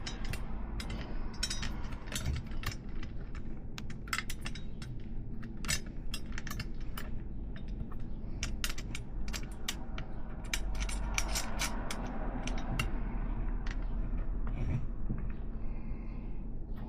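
Irregular small metallic clicks and ticks of a threaded 3/8-inch solid BMX axle and its cone nut being handled and turned by hand in the hub, over a low steady hum.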